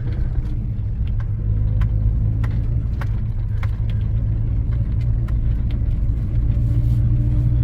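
Holden 308 V8 of a 1984 VH Commodore running steadily under way, a low engine and exhaust rumble.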